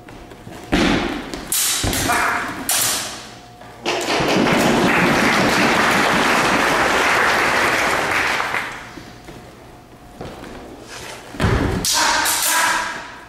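Heavy duelling sabres striking in a bout, with feet stamping on a wooden floor: a few sharp knocks in the first three seconds. Then the audience applauds for about five seconds, the loudest part, and another quick exchange of knocks comes near the end.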